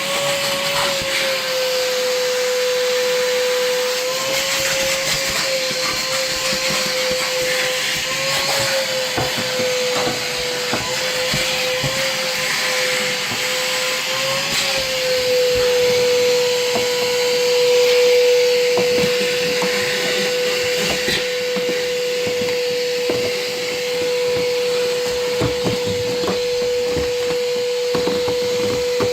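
Wet/dry shop vacuum running steadily with a motor whine and airy hiss. The whine wavers in pitch for the first half and then holds steady.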